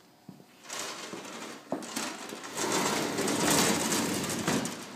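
A vehicle passing close outside: a loud rushing hiss swells from about a second in, peaks near the end and fades away, with a few sharp clicks.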